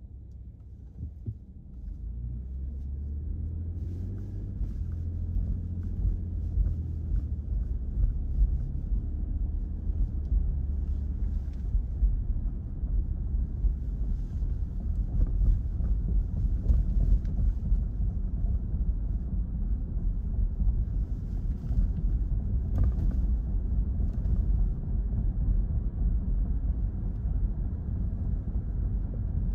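Car road noise heard from inside the cabin: a low rumble of engine and tyres that builds over the first few seconds as the car pulls away and gathers speed, then holds steady.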